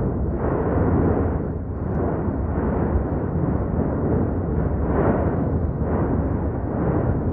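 Erupting volcanic vent rumbling deeply and continuously as lava fountains and ash blasts out. The rumble swells in surges every second or two.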